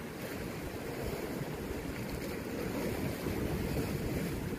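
Sea waves washing against shoreline rocks, mixed with wind rumbling on the microphone: a steady, even noise.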